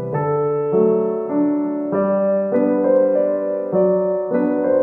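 Slow instrumental background music, sustained chords that change in steps about every half second.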